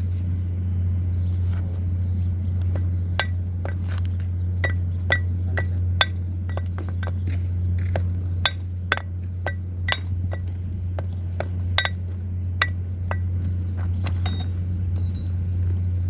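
Light metallic clinks, about twenty, from an Allen key (L-wrench) and bolts being worked against a metal gearbox housing. They are mostly packed into the middle of the stretch, over a steady low hum.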